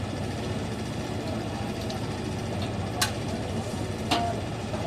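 Steady low mechanical hum in the kitchen, with two sharp clinks of a metal utensil against a wok about three and four seconds in. The second clink rings briefly.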